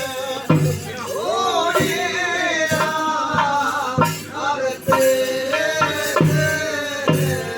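A voice singing a winding, ornamented melody over a steady beat of low drum strokes, struck roughly once or twice a second.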